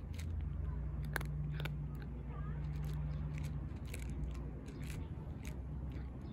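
A cat crunching dry kibble, with irregular crisp crunches, over a steady low hum.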